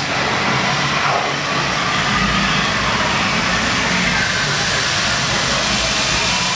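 Loud, steady rushing noise with a low rumble underneath, from the steam and flame effects of a theme-park special-effects set.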